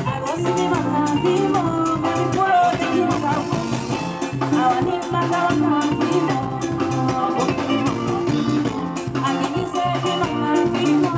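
A live band of electric guitars, bass, drum kit and keyboards playing an upbeat, steady-beat dance tune, with a woman singing lead into a microphone over it.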